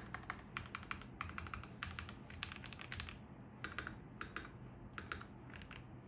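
Typing on an Asus ROG Azoth mechanical keyboard with pre-lubed ROG NX Red linear switches and double-shot PBT keycaps. The keys clack in quick bursts, with short pauses between them.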